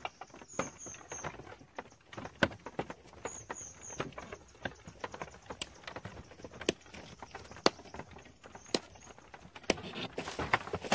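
Irregular clatter of wooden knocks and footsteps on dry, leaf-strewn ground. A small bird chirps quick runs of three or four high notes a few times.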